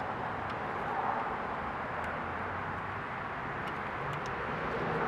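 A few faint, scattered ticks from a flathead screwdriver turning the screw of a coolant-hose clamp, over a steady background hiss.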